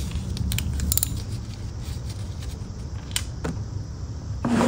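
Socket ratchet clicking in short runs on the 13 mm transmission drain plug as it is loosened, sharp metal clicks over a low steady background rumble, with a brief louder sound near the end.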